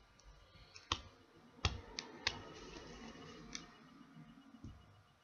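Faint, sharp clicks of a precision screwdriver and tiny screws against a smartphone's plastic frame, half a dozen spaced irregularly, over a faint low rustle of handling in the middle.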